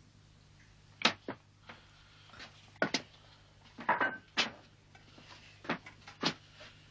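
Irregular knocks and clicks of objects being handled and bumped as a man fumbles with a wired home-made contraption, over a low steady hum.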